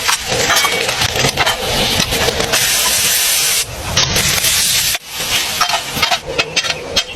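Cooking noise: a steady hiss with scattered crackles and clicks, broken by sudden cuts a little over three and a half seconds in and again about five seconds in.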